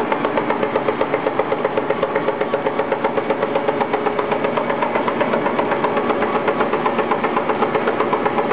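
SRD320 slitter rewinder with die-cutting station running, a steady machine sound with an even, rapid beat of about six pulses a second.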